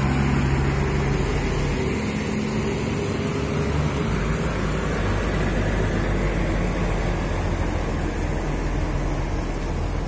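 Intercity coach bus engine pulling up a steep climb under load as the bus passes close by, with a steady low hum over the rush of tyres on a wet road.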